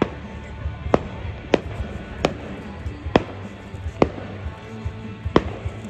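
Aerial fireworks bursting: about seven sharp bangs at uneven intervals of roughly a second, over music playing in the background.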